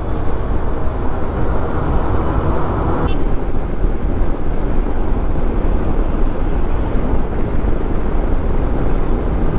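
Steady rush of wind and road noise from a KTM 390 Adventure motorcycle at riding speed, heaviest in the low end. It lightens a little about three seconds in.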